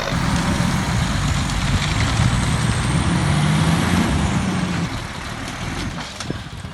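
Heavy truck engine running hard under load, its pitch rising gently before easing off about five seconds in.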